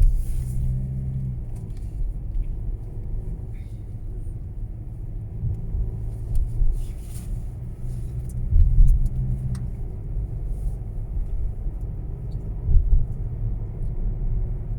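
Mercedes All-Terrain car in motion: a steady low rumble with scattered short clicks and knocks and a few heavier thumps, the rattle being recorded.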